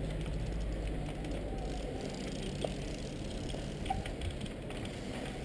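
Trials bicycle held balanced on a concrete ledge, giving a few faint clicks about two and a half and four seconds in, over a steady low background rumble.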